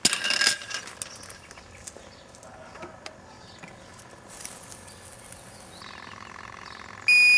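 A few metal clinks from the barhole probe at first, then a handheld combustible gas detector drawing a soil-gas sample: its pump hums steadily from about six seconds in, and a loud electronic beep from the detector starts just before the end.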